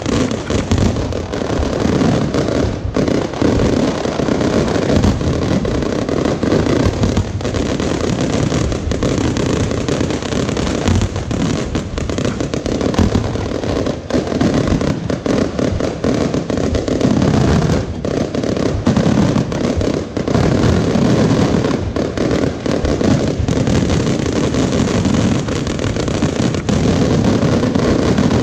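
Fireworks going off without a break: a dense run of rapid bangs and crackling.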